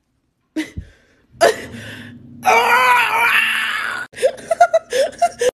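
A woman crying out in pain as she peels a charcoal peel-off face mask from her skin: a strained cry about a second and a half in, a long, loud scream from about two and a half seconds to four, then short whimpering cries.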